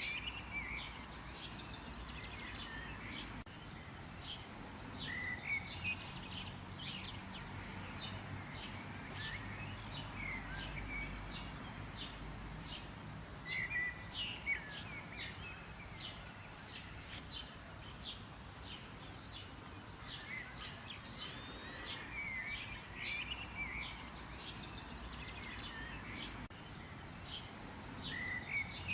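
Several birds singing and chirping, many short high notes and trills overlapping throughout, over a low steady background hum.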